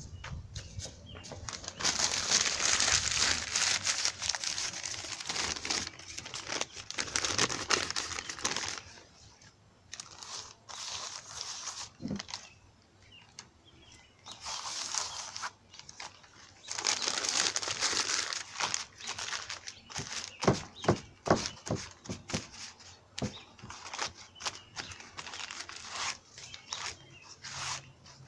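A sheet of newspaper crinkling and rustling as it is handled and pressed by hand onto wet spray paint on a canvas. The rustling comes in several long stretches, with a run of sharp crackles later on.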